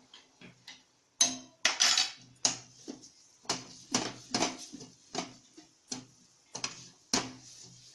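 A spoon stirring flour roasting in ghee in a pan, clinking and scraping against the pan in quick, irregular strokes that start about a second in.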